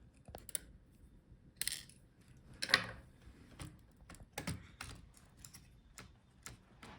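Small irregular clicks and taps of plastic and metal laptop parts being handled during disassembly, with about nine separate ticks, the sharpest a little under three seconds in.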